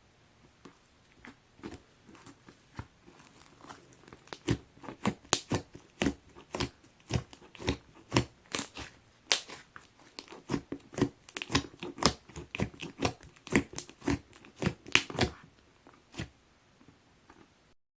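Pink slime being worked by hand, giving a run of sharp clicks and pops that starts sparse, comes thick and fast from about four seconds in, and thins out again near the end.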